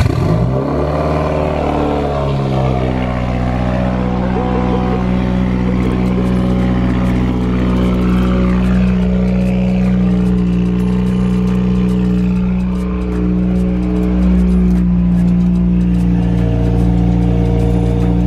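The turbocharged flat-four of a 2015+ Subaru WRX, straight-piped, starting from cold. Its revs swing in the first couple of seconds, then it settles into a loud, steady idle.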